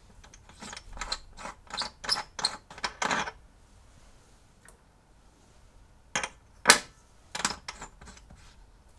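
A series of sharp clicks and metal clinks as a tool is handled against an aluminium holder cylinder on a workbench machine: about eight quick ones in the first three seconds, then a few more near the end, the loudest about two-thirds of the way through.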